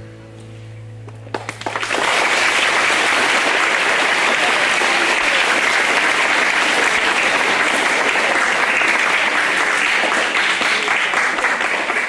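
A hall full of schoolchildren applauding steadily, starting about two seconds in as a low held musical note dies away.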